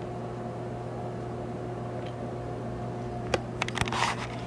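Steady machine hum in a small room, with a few clicks and knocks from the camera being handled and picked up about three and a half seconds in.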